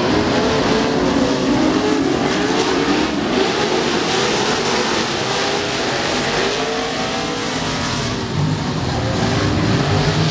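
A pack of short-course off-road race trucks racing, several engines revving up and down at once over a rush of noise. A deeper steady rumble comes in about eight seconds in.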